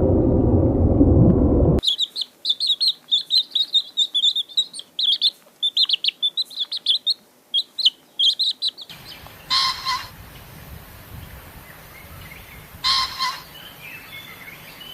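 A loud low rumble for the first couple of seconds, cut off abruptly, then a small bird chirping rapidly and high-pitched for about seven seconds. After a cut, a different animal gives a short call three times, about every three seconds.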